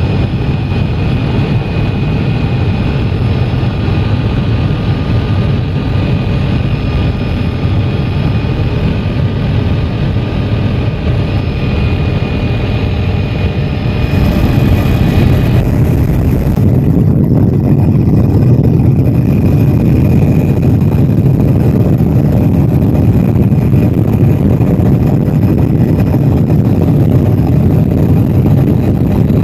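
Helicopter engine and rotor noise heard inside the cabin: a loud, steady rumble with a thin whine over it. About halfway it shifts abruptly to a slightly louder, heavier rumble without the whine.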